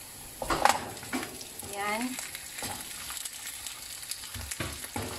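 Raw pork trotters dropped into hot oil in a non-stick pan, sizzling as they fry, with knocks as the pieces land and are pushed about with a wooden spoon; the loudest knock comes about half a second in.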